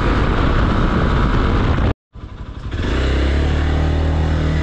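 Hero XPulse 200's single-cylinder engine riding at road speed under a heavy rush of wind noise. The sound cuts out abruptly about two seconds in, then comes back as the engine running steadily at low revs.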